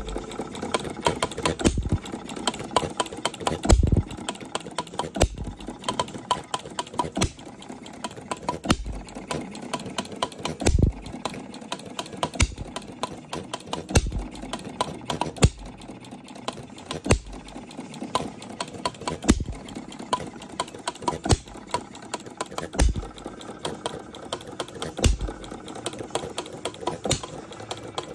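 Jacobson Bullseye model hit-and-miss engine running. It gives a firing pop about every one and a half to two seconds and coasts between them with rapid light mechanical clicking, skipping strokes as its governor holds it at speed.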